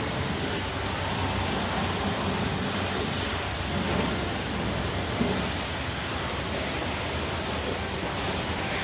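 Car-wash spray sound effect: a steady rushing hiss of water jetting onto the truck, with a faint low hum underneath.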